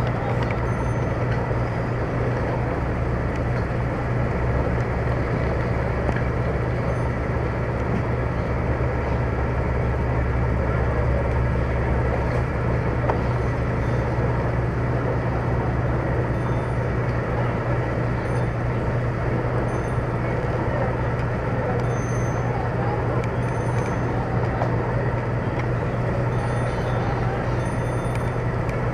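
A motor running steadily with a constant low drone and a noisy hiss above it, unchanging throughout.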